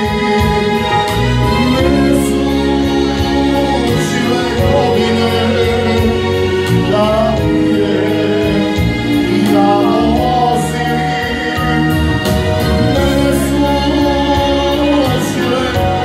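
Live band music through a PA: a man singing into a microphone over a Korg keyboard playing held chords and bass with a steady beat.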